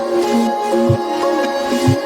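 Background music: sustained melodic notes that step in pitch over a low drum beat about once a second.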